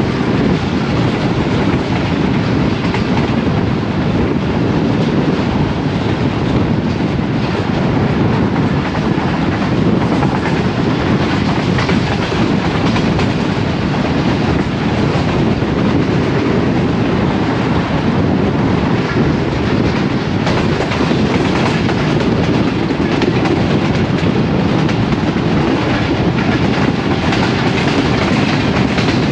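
Passenger express train running through at speed: a loud, steady rumble of wheels on rail, with the clickety-clack of the coaches crossing rail joints.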